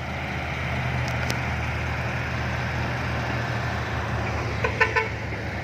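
Heavy diesel engine running steadily at a low, even hum.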